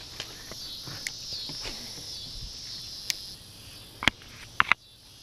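Steady high chirring of insects such as crickets, dropping off about three and a half seconds in, with a few sharp clicks from a spinning reel being handled, the loudest about four seconds in.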